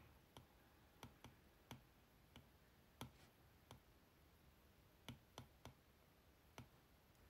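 Faint, irregular clicks of an Apple Pencil's plastic tip tapping on the iPad's glass screen during handwriting, about a dozen light taps in all.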